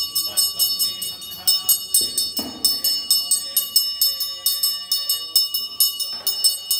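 Brass temple handbell (ghanta) rung rapidly and continuously, about four to five strikes a second, its high metallic ringing sustained throughout.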